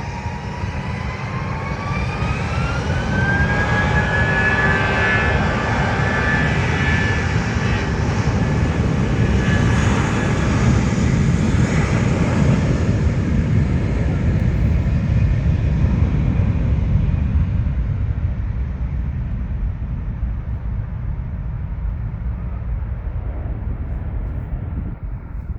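Airplane taking off: its engines' whine rises in pitch over the first few seconds, then a loud roar peaks about halfway through and slowly fades away.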